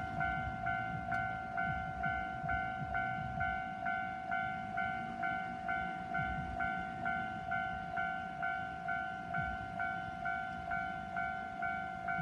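Japanese level-crossing warning bell ringing, an electronic ding repeating just under twice a second over a steady tone, with a train's low rumble and clatter on the track underneath.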